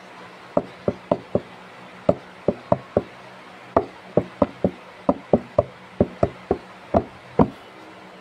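Fingers tapping on the recording phone close to its microphone: about twenty sharp taps in short, uneven runs.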